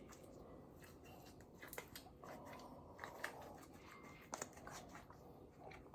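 Near silence, with a few faint, short clicks and soft handling noises.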